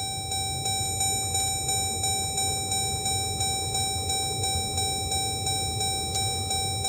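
2014 Dodge Durango's HVAC system running with the dash open: a steady blower hum with a constant high whine, and a light regular ticking about three times a second.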